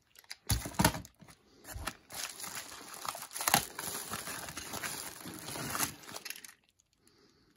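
Packaging crinkling and rustling as a toy train is unwrapped by hand, with a few sharp clicks and handling knocks first, then about four seconds of steady crinkling that stops near the end.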